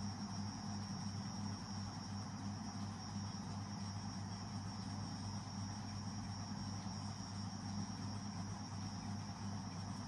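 Steady background hum with a constant high-pitched whine over it, unchanging throughout, with no distinct knocks or movements standing out.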